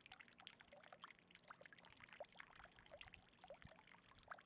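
Faint water trickling and dripping, with many small plinking drops scattered throughout.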